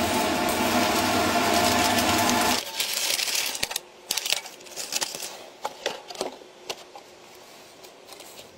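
Aerosol spray paint hissing over the steady hum of a ceiling-fan motor spinning the model's rotor blades. The sound cuts off abruptly about two and a half seconds in. Then come light clicks and rustles of cardboard and a crinkly plastic blister pack being handled.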